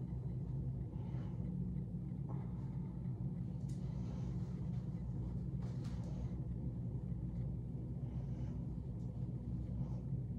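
Steady low hum of room background noise, with a few faint, brief rustles of hands and hair as long hair is pulled up and tied into a bun with a scrunchie.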